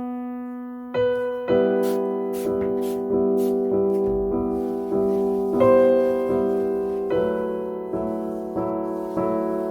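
Slow solo piano music: chords struck about every three quarters of a second, each left to ring and fade.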